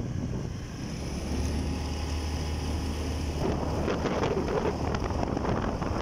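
Wind buffeting the microphone of a moving vehicle, with a low steady hum underneath; about halfway through, the rushing turns rougher and spreads higher.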